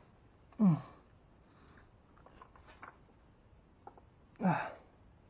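Two short grunts, each falling in pitch, a little under a second in and again near the end, with faint clicks of parts being handled in between.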